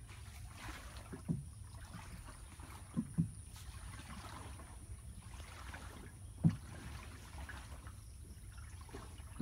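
Small wooden boat being paddled through calm canal water: soft swishing and trickling of water with each stroke, and four dull knocks against the wooden hull, two of them close together about three seconds in and the loudest a little past the middle.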